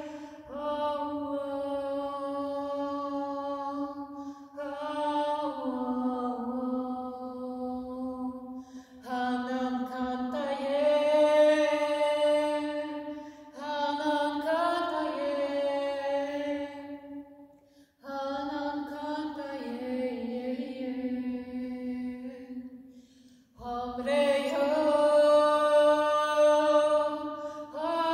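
A woman's solo voice singing a wordless, intuitive chant: long held notes that glide slowly from pitch to pitch, in phrases of four to five seconds with short breaths between, ringing in the stone church's resonance. The last phrase is the loudest.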